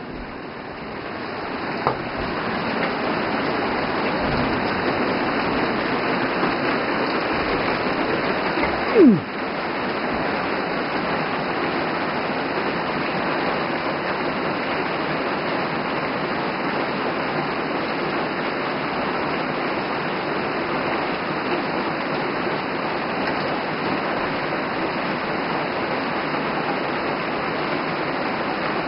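Heavy rain falling steadily on the forest, a dense even hiss that swells up over the first two seconds and then holds. About nine seconds in, a short, loud creak slides down in pitch.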